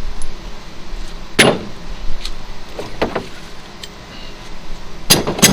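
Metal engine parts and hand tools clanking and clinking as they are handled and set down, several separate knocks with the loudest near the end.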